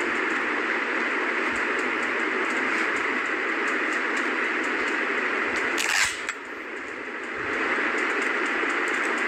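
Steady background hiss, with a brief rustle of handling about six seconds in, after which the hiss dips for a second or two and then comes back.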